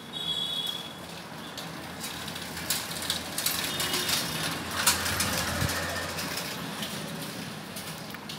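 Background vehicle engine noise, with a brief high squeal at the very start and scattered clicking and clattering in the middle; a low engine hum swells and cuts off about two thirds of the way through.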